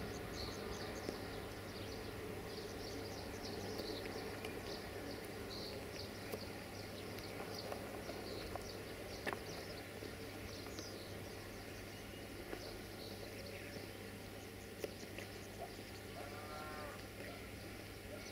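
Faint steady low drone of an idling diesel locomotive, with small birds chirping throughout and a brief wavering call about sixteen seconds in.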